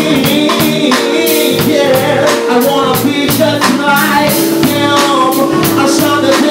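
Live soul band playing: a male singer over guitar, saxophone and drum kit, with held notes and a steady drum beat.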